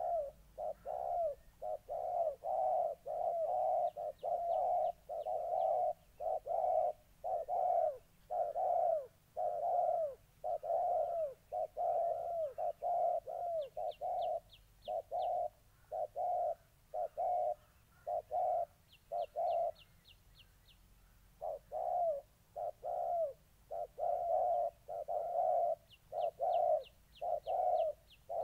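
Spotted doves cooing in a long, rapid run of short notes, about two a second, with a brief break about three quarters of the way through. This is the aggressive cooing of a territorial face-off between a caged decoy dove and a wild dove eager to fight.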